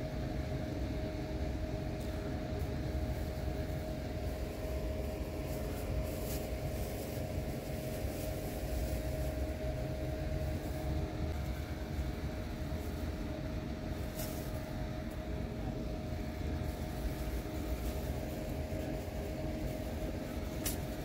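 Steady low rumble with a constant droning hum, unchanging throughout.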